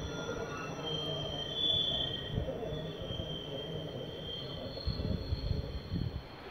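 Rhaetian Railway Bernina Express train's wheels squealing high and shifting in pitch as it rounds the curved viaduct, over a low rumble.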